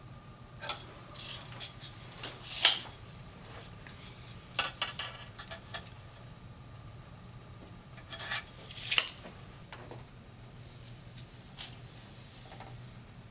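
A steel tape measure is hooked onto a metal mounting bracket and drawn out by hand, making short bursts of metallic clicks, rattles and rubbing. There are four bursts, the loudest about two and a half seconds in and again about nine seconds in.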